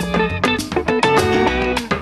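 Closing theme music of the programme: guitar-led music with strummed chords on a regular beat.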